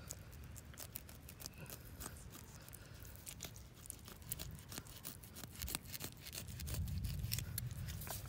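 Fillet knife cutting and scraping through a shark's tough skin along the backbone, a run of many small sharp clicks, over a low rumble that grows louder near the end.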